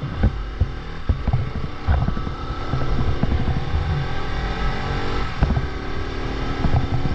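Bajaj Pulsar RS200's single-cylinder engine running steadily while riding, heard from the bike itself with wind buffeting the microphone.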